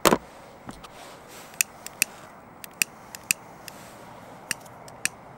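Fishing tackle being handled: one loud sharp click at the start, then a string of small, irregular clicks and ticks.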